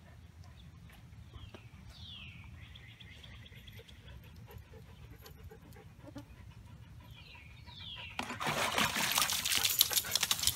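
Husky puppy scrambling out of a plastic tub of rainwater: a loud burst of splashing and scraping on the plastic near the end. Before it, a few short, high, falling chirps.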